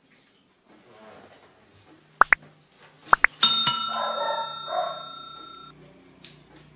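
Subscribe-button animation sound effect: two pairs of quick rising swish-clicks, then a bell ding about halfway through that rings on for about two seconds.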